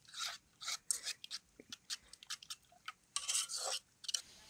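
Metal spoon stirring and scraping thick batter in a metal bowl: a run of short, irregular scraping strokes, with one longer stroke a little after three seconds in.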